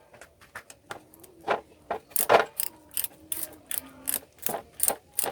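Ratchet wrench clicking as it turns a nut on a motorcycle engine's top end, a steady run of sharp clicks about three a second, beginning about a second and a half in.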